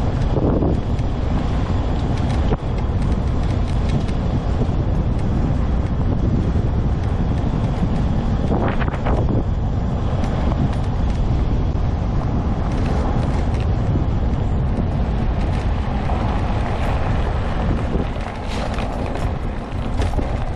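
Steady running rumble of a homemade all-wheel-drive off-road mobility scooter travelling along a trail, with wind buffeting the microphone.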